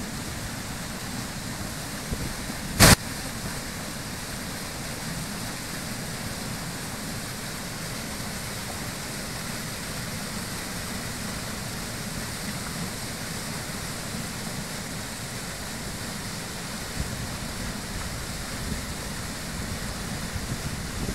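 Floodwater pouring over a lake's concrete safety spillway and churning in the pool below: a steady rushing of water. One sharp, brief click about three seconds in is the loudest sound.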